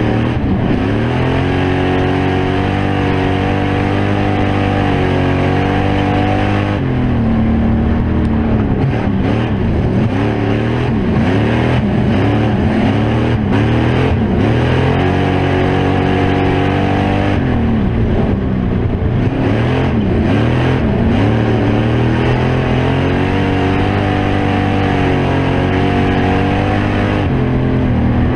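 A stock-bodied oval-track race car's engine heard from inside the cockpit, loud and continuous. The revs are held high and steady for several seconds, then drop and waver, then climb and hold high again, twice over, as the car comes off the throttle for the turns and back on for the straights.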